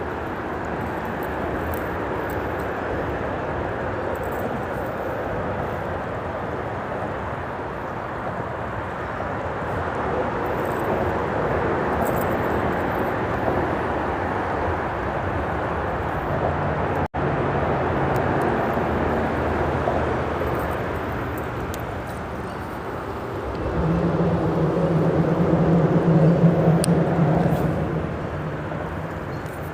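Freeway traffic rumbling across the bridge overhead, mixed with the rush of a small stream. The sound swells as vehicles pass; the loudest pass, about three-quarters of the way through, carries a heavy vehicle's low engine hum.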